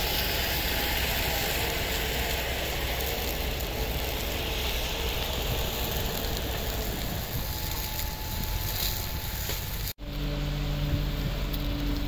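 A steady rushing noise with a faint hum. About ten seconds in it cuts abruptly to the steady, humming run of a fire tanker truck's engine.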